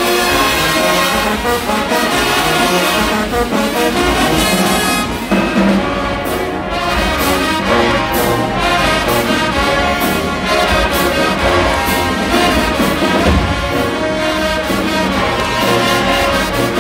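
High school marching band playing loudly: a brass section of trumpets, trombones and sousaphones, with drum hits keeping a steady beat from about five seconds in.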